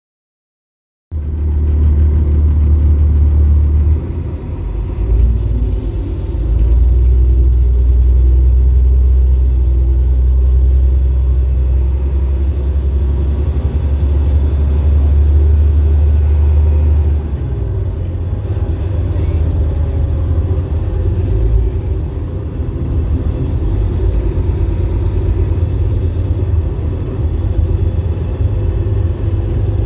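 Caterpillar-engined 2008 Denning Phoenix low-floor bus running, heard from inside the passenger cabin: a loud, steady low diesel rumble that starts about a second in. Its note changes about four seconds in and again at around seventeen seconds.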